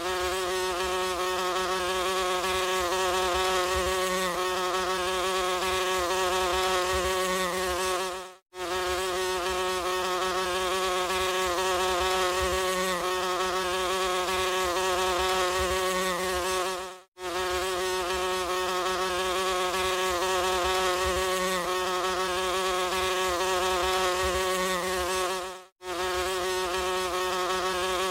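Flies buzzing in a steady, wavering drone. The buzz drops out briefly three times, roughly every eight and a half seconds, and picks up again at once.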